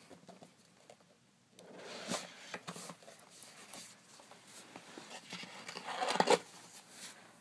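Rustling and light clicks of a wand box and its packaging being handled, in two bursts, the second, about six seconds in, the louder.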